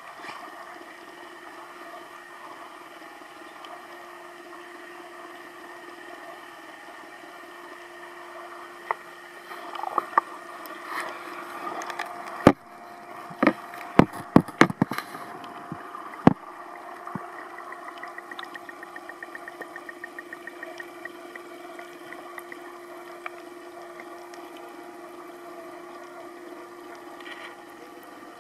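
Steady hum and water rush of reef-aquarium pumps and circulation equipment, with a cluster of sharp knocks about halfway through and a short run of rapid, even ticking soon after.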